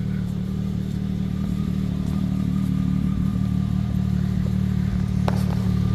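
Can-Am Maverick X3 side-by-side's turbocharged three-cylinder engine idling with a steady low hum, with a single sharp click about five seconds in.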